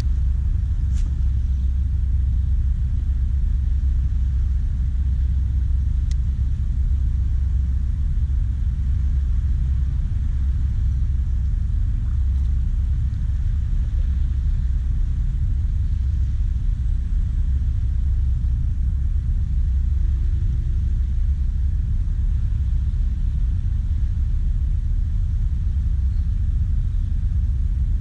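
A steady, loud low rumble with no clear pitch.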